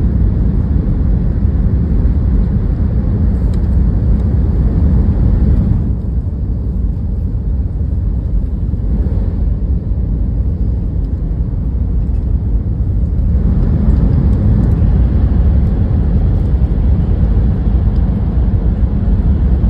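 Cabin noise of a Hayabusa Shinkansen bullet train running at full speed, about 310 to 318 km/h: a loud, steady low rumble and rush. The noise eases for several seconds in the middle, then rises again.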